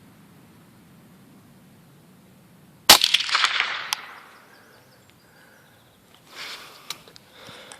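A Ruger .22LR rifle fires one shot about three seconds in: a sharp crack with a rattling tail that dies away over about a second. Fainter clicks and rustling of handling follow near the end.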